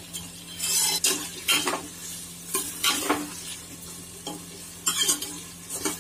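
Sliced onions sizzling in hot ghee in a pressure cooker, stirred with a metal spoon that scrapes against the pot in irregular strokes. The onions are just starting to soften on their way to golden brown.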